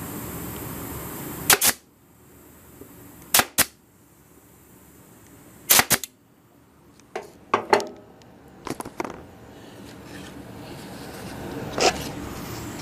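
An Arrow PT23G 23-gauge pneumatic pin nailer firing pins into plywood: a dozen or so sharp pops, mostly in quick pairs and threes, spread across several seconds. Under them a steady hum dies away after the first shots and slowly returns near the end.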